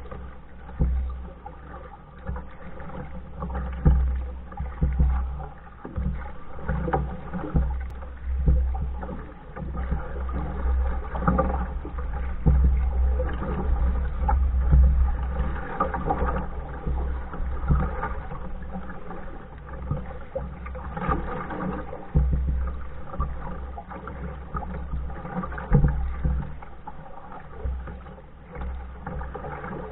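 Canoe paddling: paddle strokes dipping and splashing in the water beside a Hornbeck New Trick pack canoe, the swells coming every second or two over a steady low rumble.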